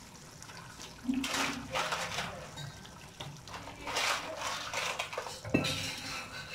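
Raw crab pieces dropped by hand into a pan of simmering masala gravy, splashing in several wet bursts, with a sharp knock a little before the end.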